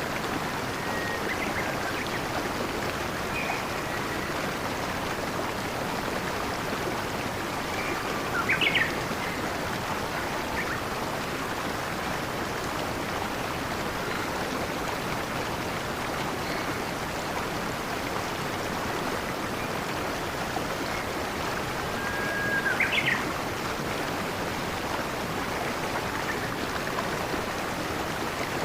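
Steady rushing of a stream or flowing water, with a few scattered bird chirps over it, two of them louder: one about a third of the way in and one about three quarters through.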